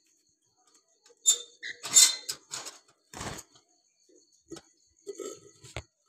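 Terracotta clay-pot nest's clay lid being lifted off: a run of scrapes and clinks of clay on clay, loudest in the first couple of seconds, with a sharp knock near the end.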